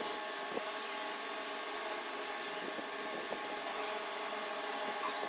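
Steady background hiss with faint steady hum tones, and a few faint small clicks and taps from handling.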